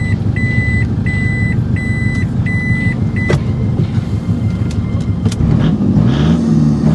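Toyota Innova's common-rail diesel engine idling, heard from inside the cabin, with the reversing beeper sounding a steady run of evenly spaced beeps that stops with a click about three seconds in; near the end the engine starts to rev up.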